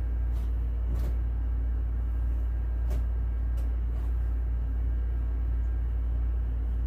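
A steady low hum, with a few faint taps and knocks as wet clothes are lifted into the spin tub of a twin-tub portable washing machine and its plastic lid is handled.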